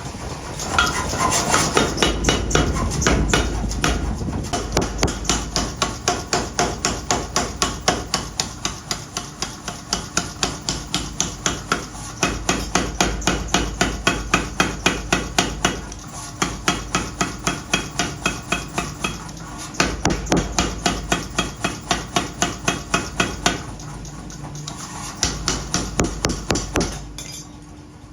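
Rapid, evenly spaced hammer blows forging steel for an axe, about three strikes a second, with a few short pauses between runs.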